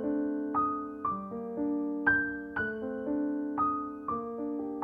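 Background music on a keyboard instrument: slow, sustained notes, with a new note or chord struck about every half second.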